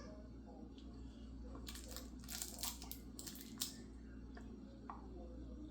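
Dog chewing and pulling at a plush dragon toy: a quick run of short rustling and tearing noises from about two seconds in, lasting under two seconds, over a steady low hum.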